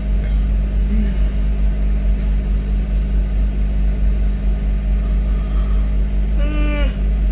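Toyota Land Cruiser Prado's engine idling steadily with the car standing still, heard from inside the cabin as a low hum. A short voice is heard near the end.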